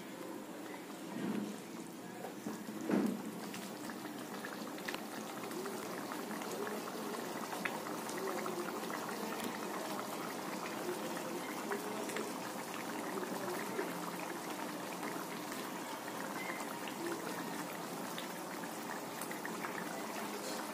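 Creamy paneer gravy thinned with milk simmering in a frying pan: a steady bubbling with many small pops. There are a couple of soft knocks in the first three seconds.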